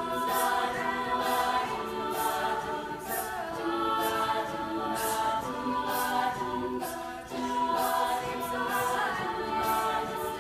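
A group of voices singing a cappella in several parts, with held notes that change pitch every second or so and sharp hissing consonants.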